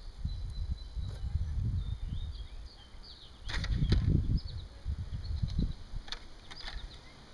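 Low rustling and thumping of hands pressing potting soil and handling plastic nursery pots, with a few sharp clicks. Small birds chirp faintly throughout.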